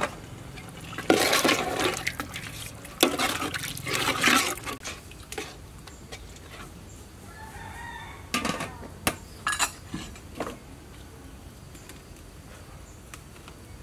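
A metal ladle stirs and scrapes through coconut-milk curry in an aluminium pot, then the pot's metal lid clinks several times as it is set on. Chickens call in the background.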